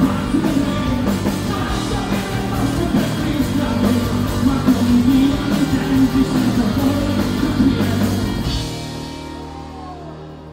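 Rock band playing live at full volume on electric bass, electric guitars and drums. A little over eight seconds in the band cuts off, leaving a chord ringing and fading.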